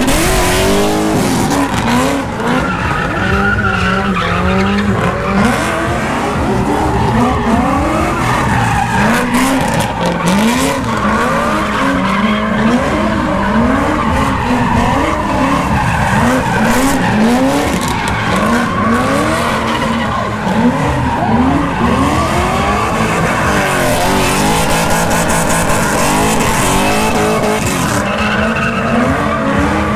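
A car engine revving up and falling back over and over, roughly once a second, while the tyres spin and squeal as the car drifts in circles on the skid pad.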